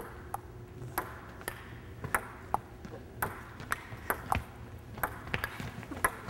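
Table tennis rally: the ball clicking sharply off paddles and the table, about two hits a second.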